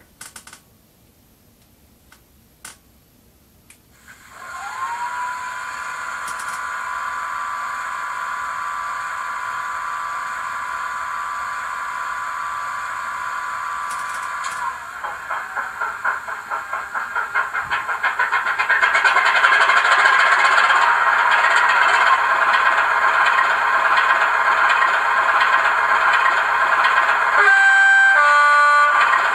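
Howes DCC sound decoder in a Bachmann OO-gauge class 24 diesel model, played through a small bass speaker, reproducing a Sulzer diesel engine. It starts up about four seconds in with a rising whine and settles to a steady idle. Around fifteen seconds in it runs up with a pulsing beat and settles louder, and a two-note horn sounds near the end.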